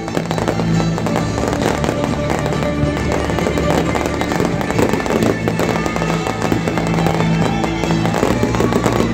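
Fireworks display going off in a dense, continuous run of quick bursts and pops, with music playing underneath.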